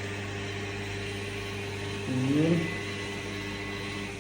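Crankshaft balancing machine spinning a Honda B20B crankshaft with its pulley fitted, running with a steady hum and whir during a dynamic balance check of the pulley after a correction. A brief voice sound comes about two seconds in.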